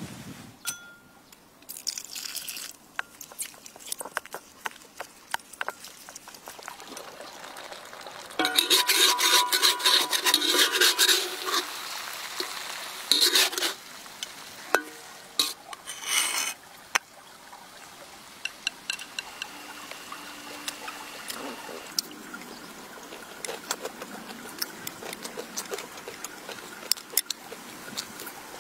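Cooking sounds: scattered sharp clicks and knocks, with a loud stretch of liquid-like noise from about eight seconds in that lasts some five seconds.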